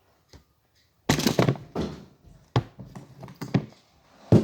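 A series of about six thuds and knocks from objects being handled, the first and loudest about a second in.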